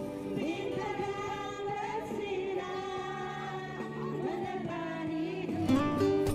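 A song with a singing voice over instrumental backing.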